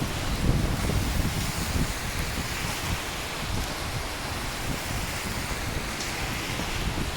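Steady heavy rain, with a low rumble of thunder through the first couple of seconds that then eases off.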